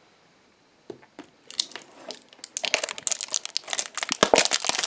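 Crinkling of blind-box toy packaging being handled and opened: a couple of light clicks at first, then steady crinkling from about a second and a half in, busier from about halfway.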